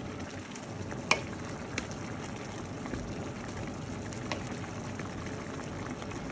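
Pork ribs bubbling and sizzling in a little water in a pan, a steady simmer. A wooden spoon stirring the meat knocks against the pan a few times, loudest about a second in.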